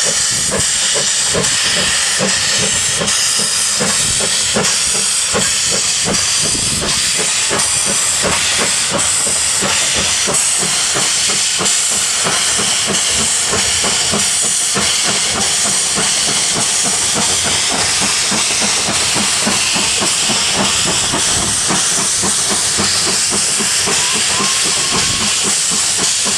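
QR AC16 class steam locomotive working under steam: a loud, steady hiss with a rapid, even rhythm of exhaust beats.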